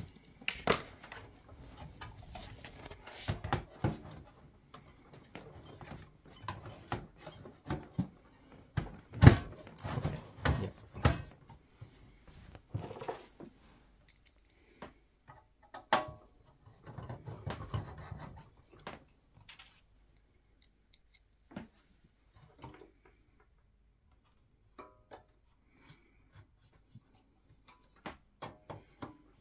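Heavy HEC 300 W ATX power supply being worked into a steel PC case: irregular scraping, knocks and cable rustle, the loudest knock about nine seconds in. In the second half, only sparse small clicks and scrapes as the mounting screws are done up with a screwdriver.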